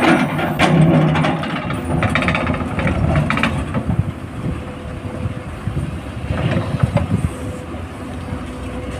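Komatsu PC300 hydraulic excavator running under load as its bucket digs and scrapes into broken rock and gravel, with rocks clattering and crunching, loudest in the first few seconds.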